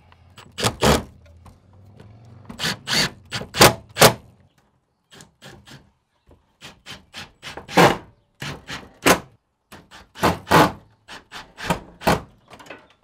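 Irregular knocks and thunks of a metal electrical panel box being fastened against wooden framing, coming in short clusters of several sharp strikes.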